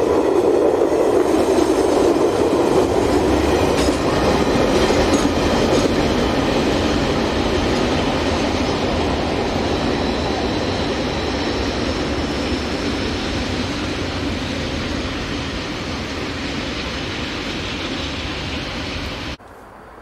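Container wagons of a freight train rolling past on the rails, the wheels clacking over the rail joints, the sound slowly fading as the train runs away, then cutting off suddenly near the end.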